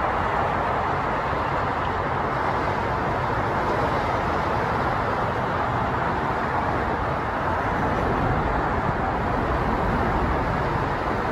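Steady road traffic noise, an even wash of sound with no single vehicle, horn or train standing out.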